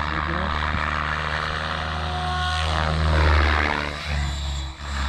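Radio-controlled XLPower 550 helicopter flying, its rotor and motor droning with the pitch sliding downward about two and a half seconds in and the sound at its loudest just after.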